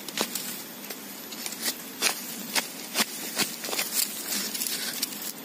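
A machete chopping and scraping into soil and bamboo roots to dig out a shoot: a string of short, sharp strikes at irregular intervals, with dry leaves and twigs rustling.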